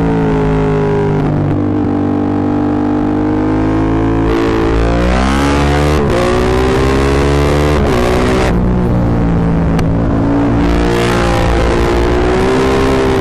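Yamaha MT-07's parallel-twin engine through a full Akrapovic exhaust, on the move and being ridden hard. The engine note rises under throttle about four seconds in and again near the end, with sharp drops in pitch between as the throttle closes or the gears change. The exhaust is loud enough to overload the small microphone.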